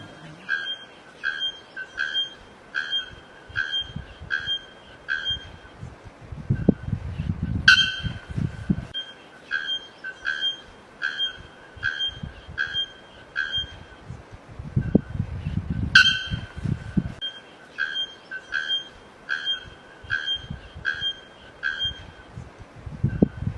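A bird calling one short, clear note over and over, about three notes every two seconds, with a sharper, louder note roughly every eight seconds. There is some low rumbling at times.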